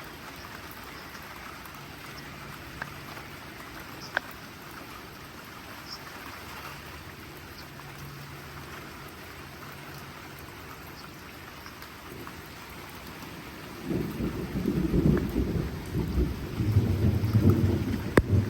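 Steady hurricane rain with a few sharp drip ticks. About three-quarters of the way in, a loud, rolling low rumble of thunder begins and keeps going.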